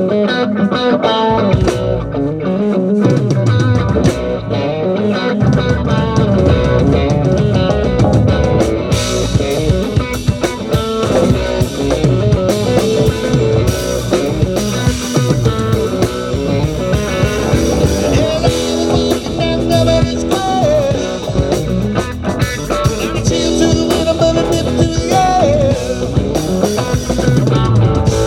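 Live rock band playing an instrumental jam: electric guitar over bass and drum kit. The bass fills in about five seconds in, and the cymbals come up about nine seconds in.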